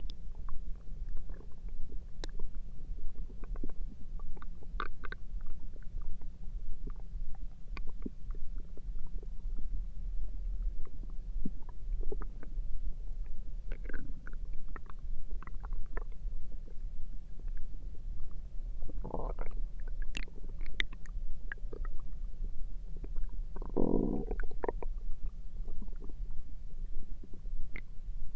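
A person's stomach and intestines rumbling and gurgling: a steady low rumble with scattered small pops and clicks, and two louder gurgles, about two-thirds of the way in and again shortly after.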